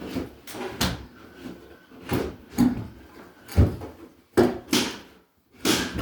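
A staircase being installed knocks and bumps as it is shifted back into position, with about eight sharp, irregular knocks.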